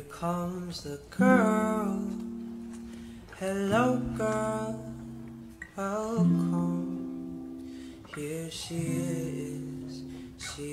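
Music: acoustic guitar chords with a singing voice.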